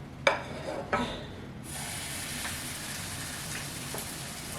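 Two light knocks, then a steady sizzle of hot oil that starts suddenly about a second and a half in, as fritter batter spooned into the pot begins to fry.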